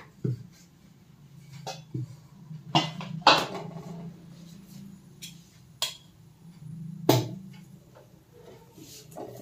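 Scattered clicks and knocks of kitchen utensils being handled while parathas cook on an iron tawa over a gas stove: a steel can picked up, the stove knob turned, the tawa touched. The loudest knocks come about three seconds in and about seven seconds in, over a steady low hum.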